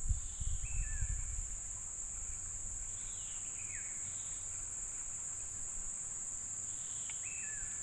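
A steady, high-pitched chorus of insects shrilling, with a bird giving a short whistled call three times. A low rumble is heard in the first second and a half.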